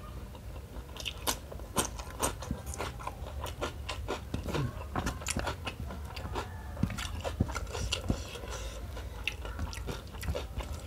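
Close-miked biting and chewing of raw cucumber and rice, with many sharp, irregular wet mouth clicks and crunches. Now and then fingers scrape rice across a metal plate.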